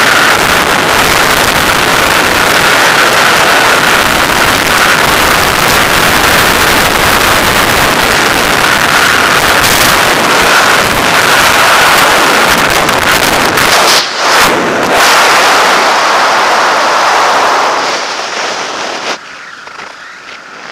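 Skydiving freefall wind rushing loudly and steadily over a helmet-mounted camera's microphone. Near the end it falls away sharply as the parachute opens and the fall slows.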